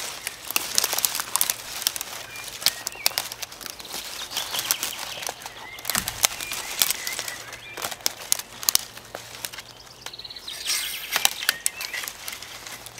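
Dry sticks and branches rustling, scraping and cracking as they are handled and piled by hand, with many sharp irregular clicks and a dull thump about six seconds in. Birds chirp faintly now and then.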